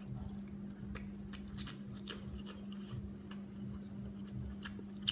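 A person chewing food, with irregular wet mouth clicks and smacks several times a second, over a steady low hum.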